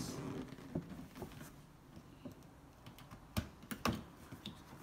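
A statue's cardboard box being opened from the top by hand: scattered light taps and clicks of the packaging, with two sharper knocks about three and a half and four seconds in.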